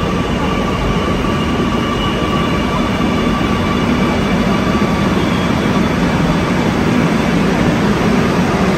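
Kochi Metro train pulling into an elevated station platform and slowing to a stop: a steady rumble of wheels on rail and running gear that grows a little louder as the train comes alongside.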